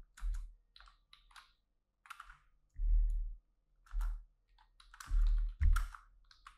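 Typing on a computer keyboard: keystrokes in irregular short runs with pauses between them, many landing with a dull low thud.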